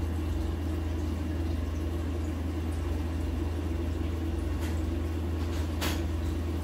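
Aquarium filter running: a steady low hum, with a couple of faint clicks in the second half.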